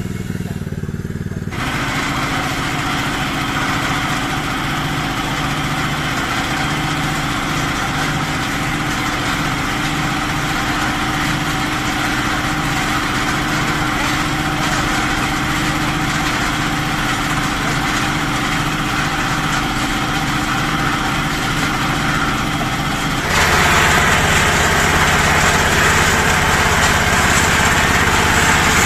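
Small single-cylinder engines of a portable water-well drilling rig and its water pump running steadily, opened up to full throttle about a second and a half in and growing louder again near the end.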